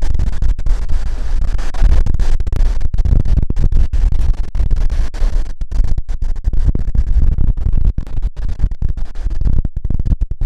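Strong wind buffeting the camera microphone: a loud, choppy rumble that keeps cutting in and out.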